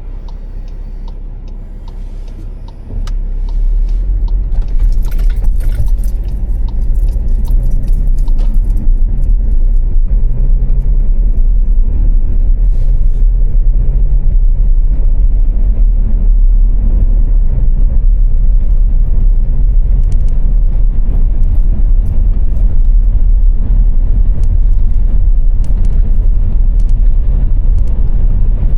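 Car driving on a motorway: a steady low rumble of road and engine noise, which gets much louder about three seconds in and then holds steady.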